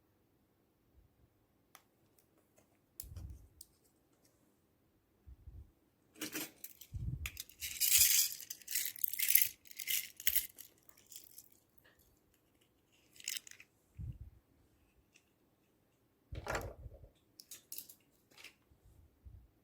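Slime being squished and mixed by hand: scattered sticky clicks and soft low thuds, with a run of dense crackling from about six to eleven seconds in and another short one near the end.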